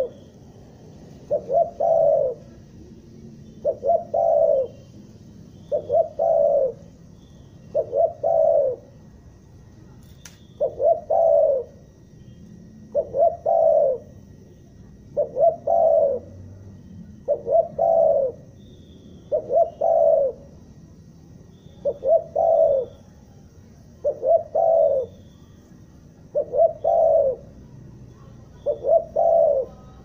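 Spotted dove (tekukur) cooing over and over, one phrase about every two seconds, each phrase two short clipped notes followed by a longer coo. This is the stuttering 'gagap' call style.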